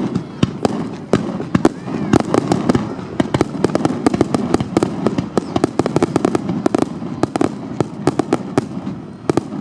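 Fireworks going off in a dense barrage: many sharp bangs and crackles, several a second, over a steady background din.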